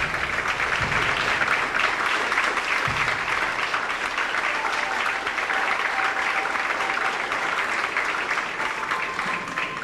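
A large audience applauding, steady clapping from many hands.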